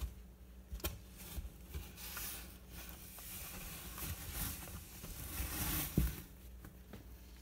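Scottish terrier puppies stirring and shuffling on a towel: soft rustling and scuffling with a few light knocks, and one low thump about six seconds in.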